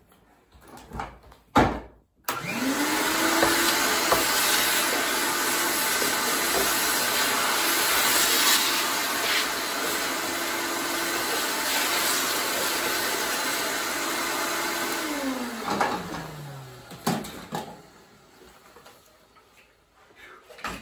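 A sharp knock, then a vacuum cleaner switched on. Its motor rises quickly to a steady whine with a loud rush of air, runs for about thirteen seconds, then is switched off and winds down with a falling pitch.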